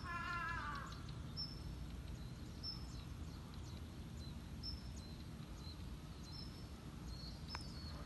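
Outdoor ambience with a steady low rumble and short high bird chirps about once a second. In the first second, a drawn-out animal call with a wavering pitch fades out.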